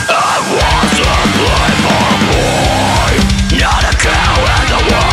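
Deathcore music: distorted guitars over fast, steady drumming.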